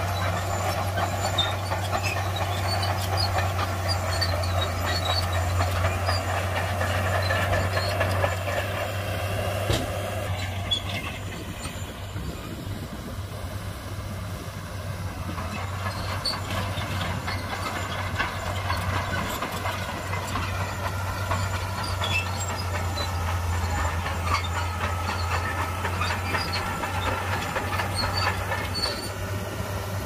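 Heavy diesel earthmoving machinery running steadily, with a low engine hum and metallic clatter. There is a sharp knock about ten seconds in, after which the engine sound eases and grows quieter for a while before picking up again.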